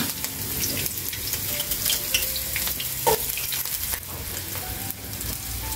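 Chopped red onion and garlic sizzling steadily in hot sunflower oil in a frying pan, with scattered sharp crackles.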